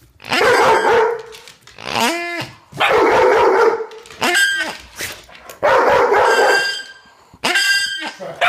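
Puppies barking and yipping in repeated loud bursts, one of them a short high yelp about two seconds in.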